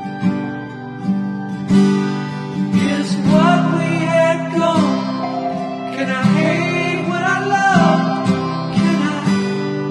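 Background music: a strummed acoustic guitar, with a singing voice carrying a melody over it from about three seconds in and again around six seconds.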